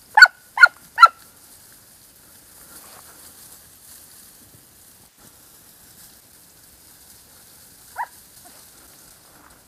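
Hare-hunting dog barking: three quick, loud barks at the start, then one more bark about eight seconds in. It is a hound giving tongue while working cover for hare.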